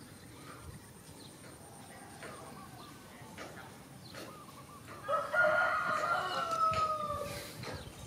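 A rooster crowing once, starting about five seconds in: one long call of about two and a half seconds that drops a little in pitch at the end.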